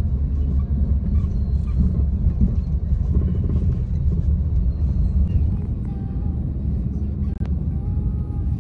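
Steady low rumble of ambient noise, with one short click about seven seconds in.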